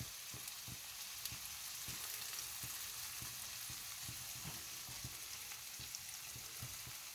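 Chicken pieces sizzling steadily in a hot pan of spiced sauce, with light, irregular knocks from stirring.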